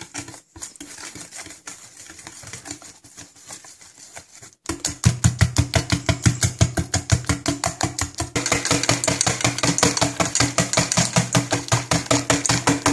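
A wire whisk beating pancake batter in a stainless steel bowl. It starts as soft, uneven stirring into the dry flour. About five seconds in it becomes loud, fast, even whisking, about six strokes a second, the wires clattering against the metal bowl so it rings.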